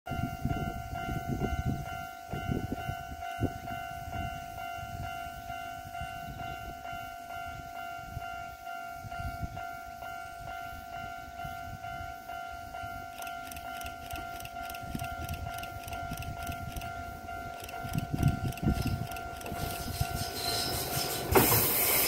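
Japanese level-crossing warning alarm ringing steadily with its repeating electronic ding. About a second before the end, a Kyoto Municipal Subway 20 series electric train arrives at the crossing and its loud running noise drowns the alarm.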